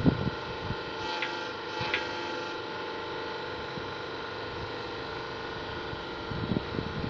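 Steady mechanical hum with a few knocks: a sharp one right at the start, two faint clicks one and two seconds in, and a few more knocks near the end.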